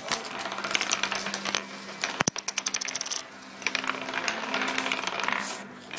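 Wooden nickels spinning and clattering on a wooden tabletop: a dense run of light clicks and rattles. There is a fast, even rattle about two seconds in, a short lull about three seconds in, then more clicking.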